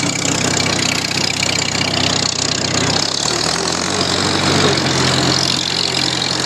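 International Harvester No. 46 twine-tie square baler running empty off a tractor's PTO, with the tractor engine running steadily under it; the freshly greased baler runs real nice and quiet. The engine note shifts slightly about three seconds in.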